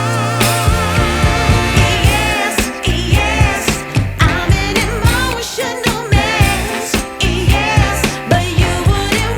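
Background pop music with singing over a steady beat.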